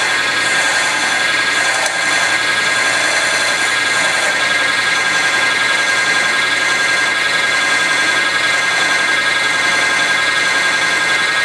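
Mini wood lathe running with a steady high whine while a turning tool is held against the spinning wooden spindle.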